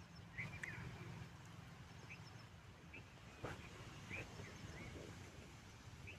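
Quiet riverside ambience: short high bird chirps, about one every second, over a low steady rumble, with a single sharp tap about three and a half seconds in.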